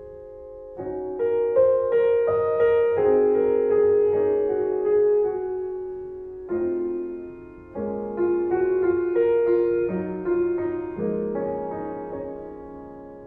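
Background music: slow piano, sustained notes and chords that each fade before the next is struck.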